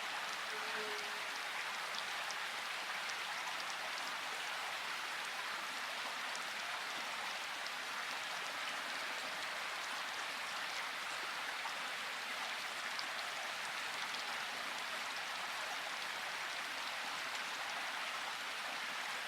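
Steady rain falling, with scattered sharp drop ticks heard through it.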